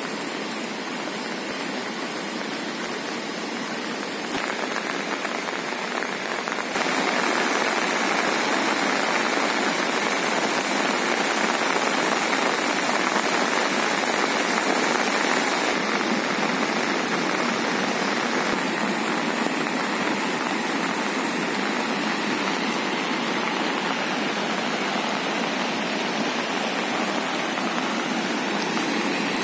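Steady rushing noise of rain and a swollen, fast-flowing river in flood. It gets louder in two steps in the first quarter, then holds.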